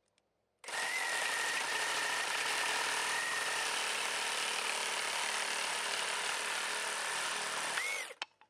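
Milwaukee Super Sawzall cordless reciprocating saw cutting through a 4x6 timber in orbital mode. It starts about half a second in, runs steadily with a thin whine for about seven seconds, then stops near the end.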